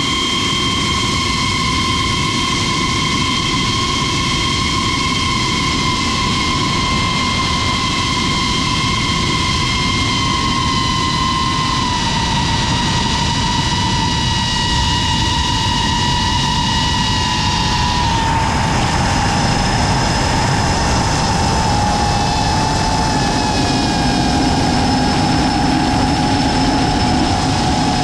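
Camera drone's electric motors and propellers whining steadily over a constant rushing noise. About eighteen seconds in the whine changes pitch: the higher tones step up while the lowest one drifts down.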